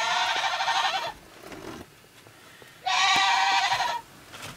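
A goat bleating twice, each call about a second long with a quavering pitch, with a short pause between them.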